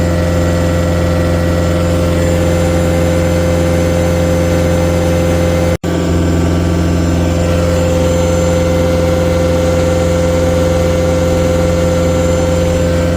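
Cat 289D3 skid steer's diesel engine running steadily at an even speed, the sound briefly cutting out about six seconds in.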